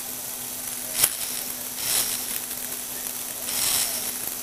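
Plastic Lego Technic gearbox working: a sharp click about a second in, then two swells of plastic gear clatter, around two seconds and near the end, over a steady low hum.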